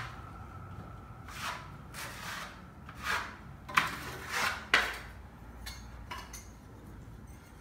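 Hand tool rubbing over a patched plaster wall in a run of short, uneven strokes, about seven in the first five seconds, as the patch is polished off near finish.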